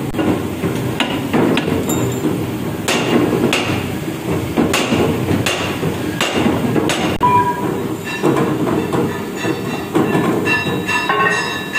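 Hydraulic press forming a mild-steel truck rim plate: a steady low machine drone with a string of sharp metallic knocks.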